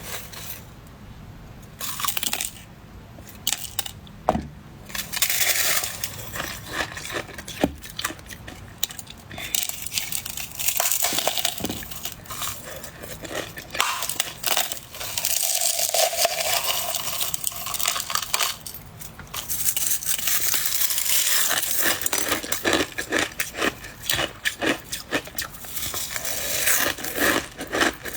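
Close-miked crunching of soft white ice (shaved ice or freezer frost): dense, rapid crackles and crunches with short pauses.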